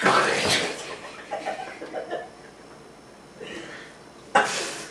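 Water poured from a glass splashing onto the face of a person lying on the floor, with spluttering and a short chuckle. A second sudden noisy burst comes near the end.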